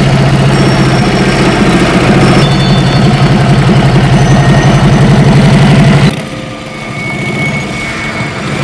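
Motorcycle engine idling with a steady, low, pulsing note. About six seconds in it drops suddenly to a much quieter level.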